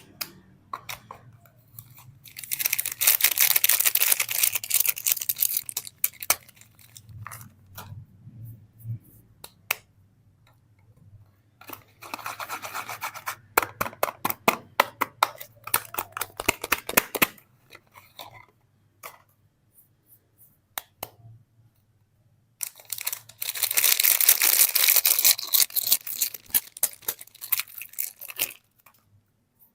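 Soap packaging being torn and crinkled open by hand, in three long spells of dense rustling, with scattered light clicks and taps in between.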